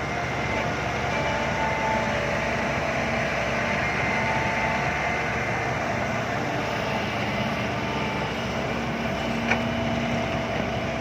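Six-wheel dump truck's diesel engine running steadily, with a constant drone and no change in revs.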